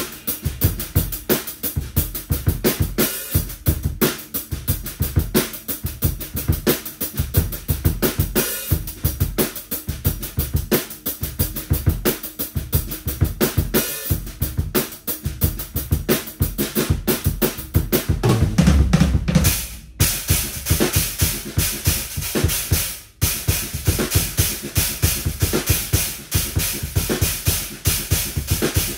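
Tama drum kit played at speed, with a steady stream of kick and snare hits. About two-thirds of the way through comes a dense, low-heavy fill, followed by two short breaks.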